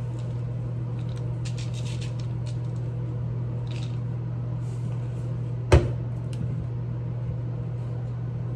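Kitchen handling sounds over a steady low hum: a few light clicks in the first seconds, then one sharp knock a little past the middle, as cookware or utensils are handled.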